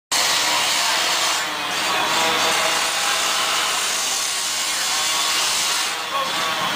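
Carbide-bladed rescue saw cutting through a metal fence: a steady, loud, harsh grinding that eases briefly twice as the blade works the metal.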